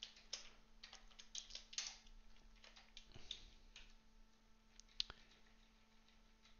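Quiet computer-keyboard typing: a quick run of keystrokes in the first two seconds, then scattered key presses with one sharper click about five seconds in.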